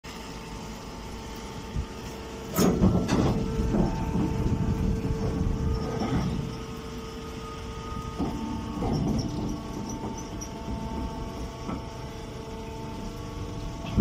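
A hydraulic mini straw baler running: a steady machine hum whose pitch shifts now and then, broken by several sharp metallic clanks and knocks, the loudest about two and a half seconds in and another near eight seconds.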